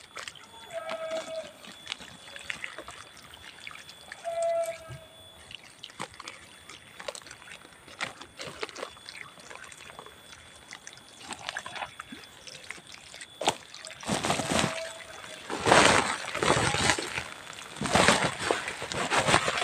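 Kitchen ash poured from a woven plastic sack onto the ground in several loud rushes, starting about two-thirds of the way in. Before that there are only light rustles and a few faint clicks.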